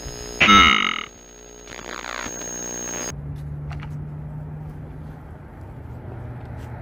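An edited-in electronic sound effect: steady synthesizer tones with a loud bending burst about half a second in. It cuts off abruptly about three seconds in to outdoor open-air noise with a low steady hum.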